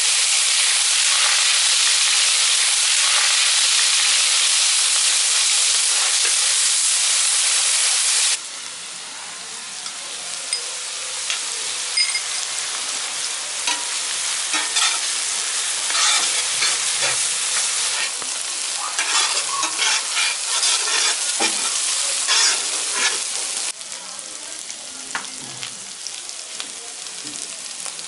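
Chopped onions frying in hot oil in an iron kadai, a loud steady sizzle that drops to a quieter sizzle about eight seconds in. A slotted steel spatula stirs and scrapes against the pan, with scattered clinks.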